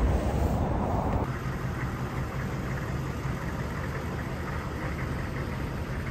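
Hummer H1's 6.5-litre V8 diesel idling steadily with an even low hum. For about the first second a louder, rougher noise lies over it, then cuts off abruptly.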